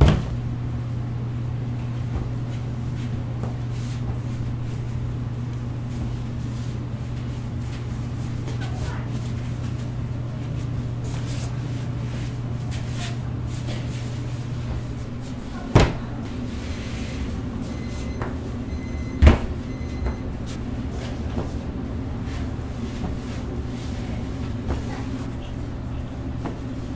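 Food-stall work sounds: a steady low machine hum, shifting slightly higher about halfway through, with a few sharp knocks of hard objects. There is one knock at the start and two more about three and a half seconds apart in the second half.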